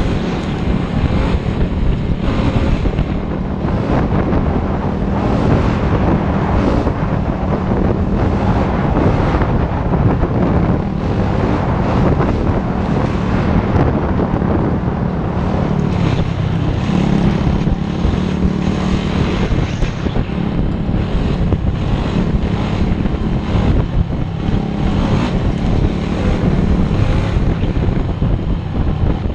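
Yamaha YFZ450R sport ATV's single-cylinder four-stroke engine running steadily at trail speed, its note rising a little about halfway through, with wind buffeting the handlebar-mounted microphone.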